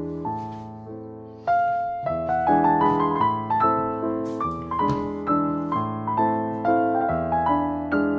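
Background piano music: a gentle melody of struck, fading notes, louder from about a second and a half in.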